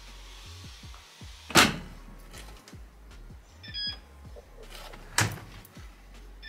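Two loud knocks about three and a half seconds apart, with a short electronic appliance beep between them and another near the end, over soft background music.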